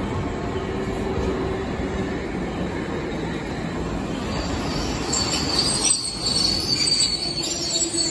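Toyama Chiho Railway streetcar rolling into the platform with a low running rumble; from about five seconds in its steel wheels squeal on the rails in a high, ringing tone.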